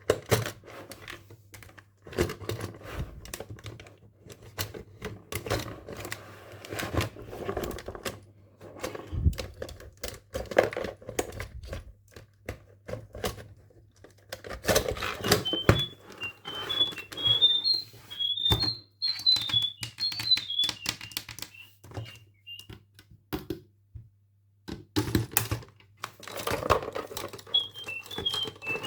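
Plastic toy and packaging handled with a run of clicks, taps and knocks. About halfway through, an electronic toy bird chirps a quick string of short high tweets that rise and fall for several seconds, and it chirps again near the end.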